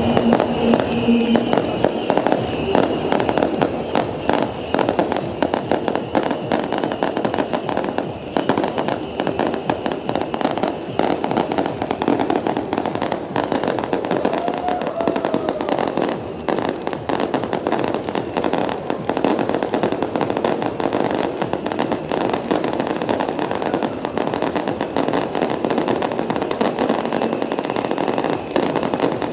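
A beehive rocket battery (fengpao) firing: a dense, unbroken rattle of small rockets and bangs going off in rapid succession.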